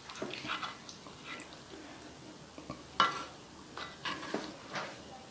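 Wooden spoon scraping and knocking against a cast-iron sizzling plate while scooping balut and sauce: scattered small clicks and scrapes, with a sharper knock about three seconds in.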